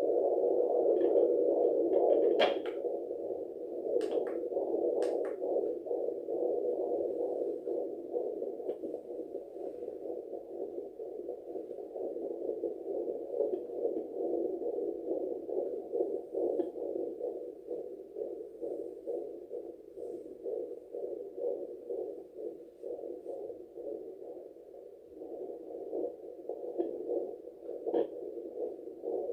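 Handheld fetal Doppler playing through its small speaker: a muffled, pulsing whoosh of blood-flow and heartbeat sounds picked up by the probe on a pregnant belly. A few sharp clicks break in, about two seconds in, around four and five seconds in, and near the end.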